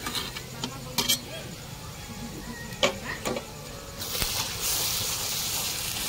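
A few sharp clinks of utensils against a cooking pot, then about four seconds in hot oil in the pan starts sizzling, a steady hiss that stays louder.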